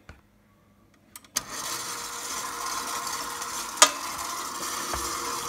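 KitchenAid stand mixer switched on at low speed about a second and a half in, its motor then running steadily with a faint hum while the dough hook turns through flour and oil in the steel bowl. One sharp click near four seconds in.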